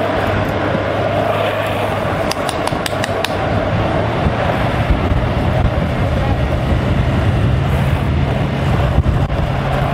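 Longboard wheels rolling fast on asphalt, with wind rushing over the microphone and a steady low hum underneath. A few quick clicks come around two to three seconds in.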